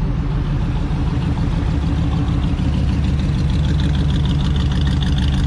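Engine of a vintage 1920s-style sedan running at a low idle as the car rolls slowly past. A faster, clattery ticking grows in about halfway through as it comes closest.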